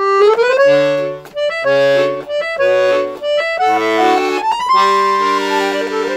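Background music on accordion: a short melody over changing bass chords, settling on a held chord near the end.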